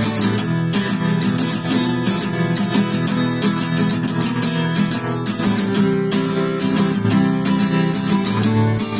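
Acoustic guitar strummed in a steady rhythm, playing the instrumental break between verses of a song with no singing.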